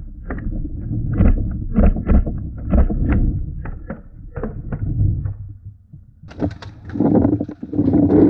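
Paintball markers firing: a few sharp pops a second, with paintballs smacking the wooden barricades, over a low rumble of movement and handling on the camera. Near the end the pops come thicker and faster, building into rapid fire.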